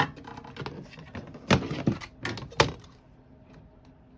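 Handling noise from an aluminum window frame and rubber gasket being worked: a sharp click at the start, scraping and rustling, then three louder knocks about one and a half to two and a half seconds in.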